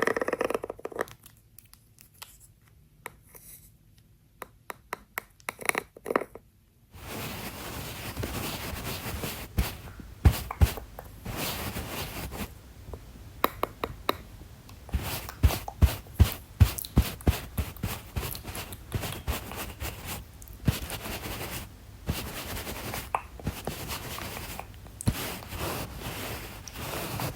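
Close-up ASMR makeup handling sounds: scattered sharp taps and clicks at first, then from about seven seconds in a steady scratchy rustle layered with many quick taps and clicks.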